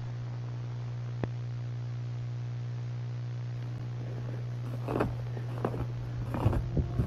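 Steady low electrical hum of a worn VHS tape playing back, with a single click about a second in. From about four seconds in, irregular crackling and scraping noises break in as the picture glitches into the tape's footage.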